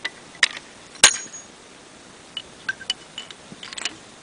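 A single shot from a .55 Boys anti-tank rifle, a sharp crack about a second in with a brief ringing tail. A smaller click comes just before it, and a string of light metallic clicks and clinks follows.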